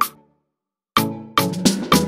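Background music with a steady beat, dropping out completely for about half a second near the start before it comes back in.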